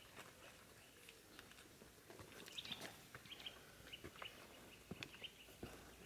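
Faint, irregular taps and scratches of a White-backed Woodpecker working its bill and feet over a branch while foraging, a few sharper clicks bunched about halfway through.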